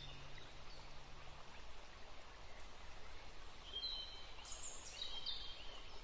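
European robin singing short, high, thin phrases, starting nearly four seconds in, over a steady quiet outdoor hiss.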